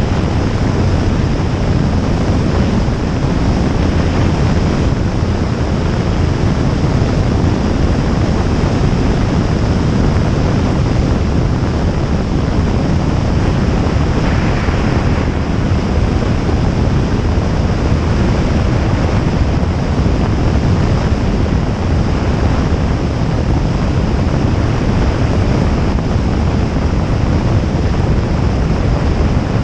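Steady rush of wind over a microphone mounted outside a Jabiru J160 light aircraft in flight, with the low, even drone of its four-cylinder engine and propeller underneath.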